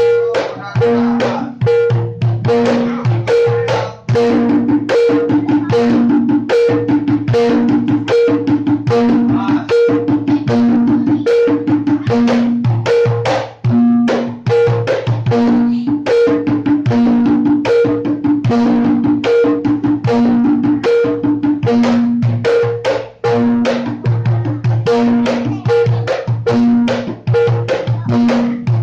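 Reog Kendang accompaniment: fast, continuous hand drumming on kendang drums over a steady repeating cycle of pitched gong notes alternating low and higher. Brief breaks in the drumming about four seconds in, near the middle and about two-thirds through.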